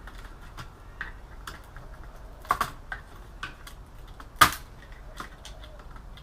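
Irregular clicks and taps of small hard computer parts being handled during dismantling, with a louder knock about four and a half seconds in.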